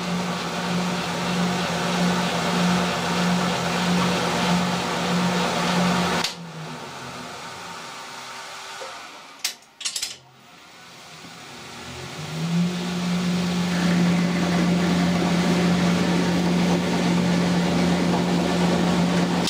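Colchester geared-head lathe running under power on a screw-cutting pass, a steady whirring hum that stops about six seconds in. Two sharp clicks come near the middle, then the lathe starts again, builds up to the same steady hum, and cuts off right at the end.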